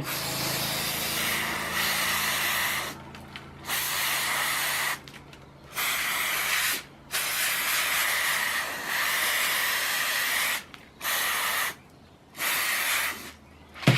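Aerosol can of CRC anti-corrosive oil spraying into a rusted Swiss Army knife's tool joints to free them up: six hissing bursts with short pauses between, the longest about three seconds.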